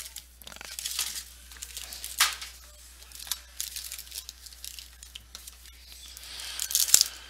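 Sports-card hobby boxes being opened and the card packs pulled out: cardboard tearing and pack wrappers crinkling in an irregular run of scratchy rustles, with a sharp click near the end.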